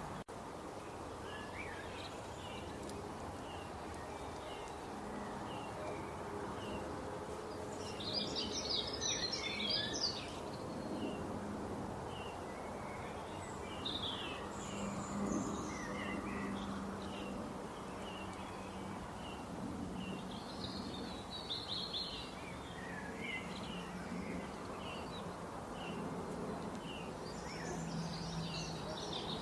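Birds singing outdoors: short chirps repeating about once a second, with louder bursts of warbling song several times, over a steady background hiss.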